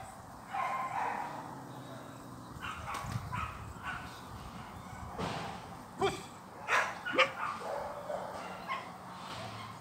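Dog barking in short, separate barks, the loudest few coming about five to seven seconds in.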